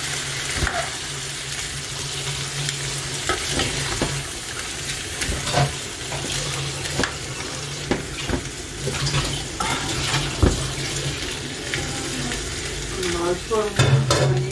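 Chickpeas and potato cubes sizzling in oil in a frying pan while a metal spatula stirs them, with frequent scrapes and clicks against the pan, over a steady low hum.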